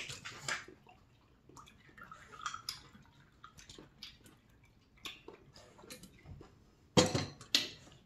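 Eating sounds close to the microphone: chewing and sipping hot-pot broth from a bowl with a spoon, small wet clicks and slurps throughout, with two louder slurping bursts near the end.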